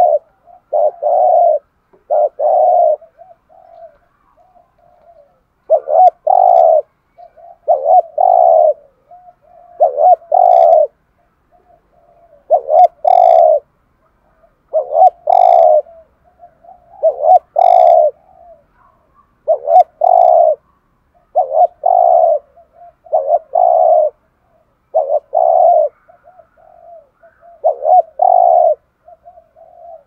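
Spotted dove cooing: short, rapid coo phrases repeated roughly every one to two seconds, in the quick 'thúc gù' style.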